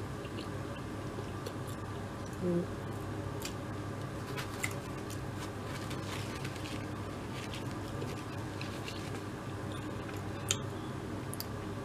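A person chewing a mouthful of fried chicken sandwich close to the microphone: scattered soft mouth clicks over a steady low room hum, with a short hummed 'mm' about two and a half seconds in.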